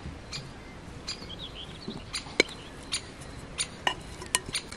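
Wooden spoon tapping and scraping against a glass bowl as salad is scraped out into a clay dish: scattered sharp clinks, about two a second.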